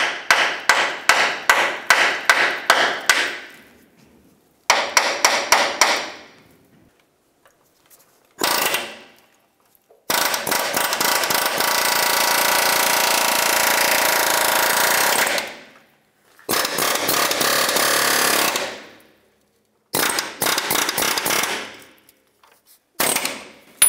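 Air hammer (pneumatic chisel) hammering metal on metal in several bursts, knocking seized alignment adjustment washers and nuts off the control arm bolts. Fast separate strikes at first, then shorter bursts and one long unbroken run of about five seconds in the middle.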